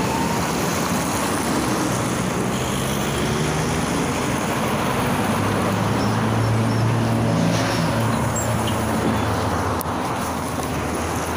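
A PAZ-32054 bus engine running slowly as the bus draws up alongside and stands at the stop, over the noise of passing road traffic. Its low hum is strongest about halfway through.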